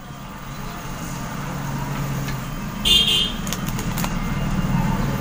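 Low steady rumble of a running motor vehicle, growing louder, with a brief high-pitched toot about three seconds in and a few sharp clicks just after.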